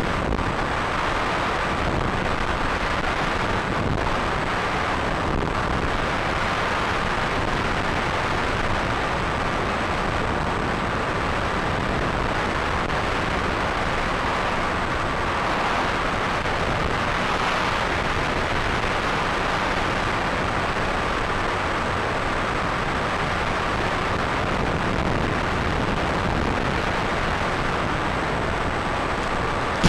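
Steady rushing noise with a faint, steady high whine.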